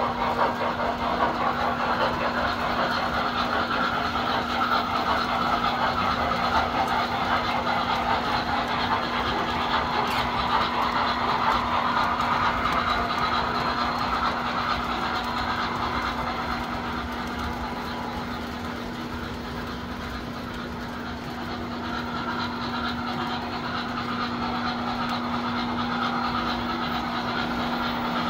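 Tinplate toy trains running on metal track: a steady rumble of wheels and electric motors with a constant low hum. The rumble fades somewhat in the second half and grows louder again near the end as a train draws away and comes back.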